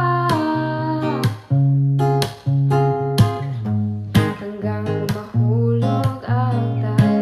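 Music led by an acoustic guitar, chords struck about once a second.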